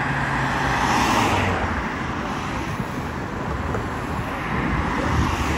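Road traffic: cars passing close by, their tyre and engine noise swelling about a second in and again near the end.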